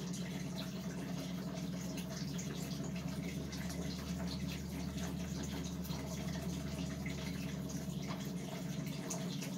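Electric fan running with a steady low hum and airy whir, with faint light clicks of small plastic and metal parts being handled.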